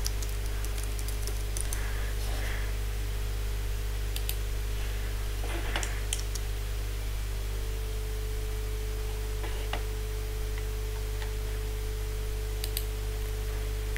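A few scattered computer keyboard keystrokes and clicks, spread out with pauses, over a steady low electrical hum.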